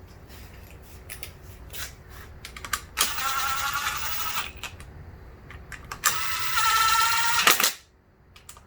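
Small cordless power driver running in two short bursts of about a second and a half each, its motor whining at a steady, slightly rising pitch as it drives in the display's mounting bolts. Light clicks and handling knocks come between the bursts.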